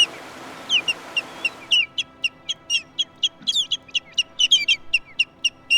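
Birds calling: a rapid, uneven series of short, high, downward-slurred chirps, several a second. A longer, stronger call comes at the very start.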